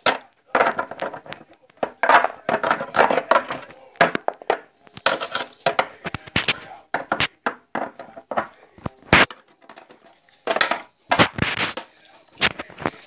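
Close handling noise: irregular clusters of rustling, crinkling and clicking, with now and then a sharper knock, as things are moved about right next to the microphone.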